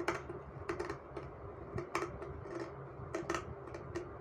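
Fabric scissors snipping through cloth to cut a curved armhole: a run of irregular, sharp snips, several a second.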